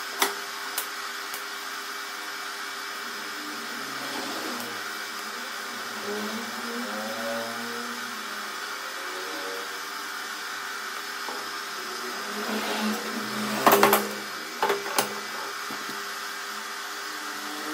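TIG welding on stainless steel tube: a steady hiss and hum from the welder and arc, with a few sharp knocks about three quarters of the way through.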